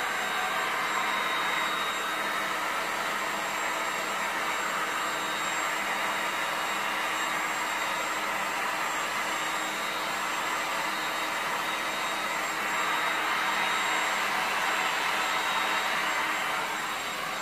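Electric heat gun running steadily: a continuous blowing rush from its fan with a thin, high, steady whine.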